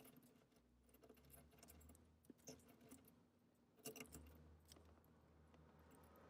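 Near silence, with a few faint clicks and light rattles from small wires and connectors being handled; the clearest cluster comes about four seconds in.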